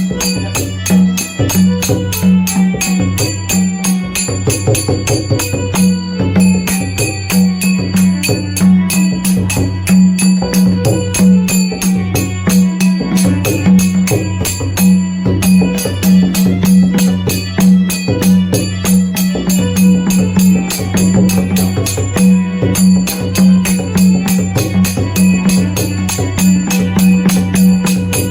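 Traditional percussion music played live: a deep drum beating a fast, unbroken rhythm with bright jingling metal percussion over it.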